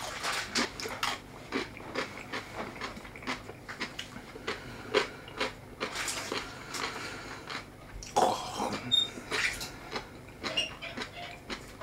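A person chewing a mouthful of onigiri rice ball close to the microphone: soft, irregular wet mouth clicks and smacks.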